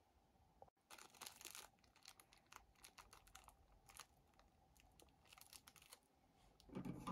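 Faint crinkling and clicking handling noises, a string of short scratchy sounds, with a somewhat louder knock near the end.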